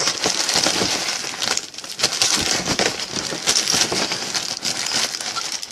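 Empty foil trading-card pack wrappers crinkling and rustling as they are handled and sorted through, a dense run of crackles with a short lull about a second and a half in.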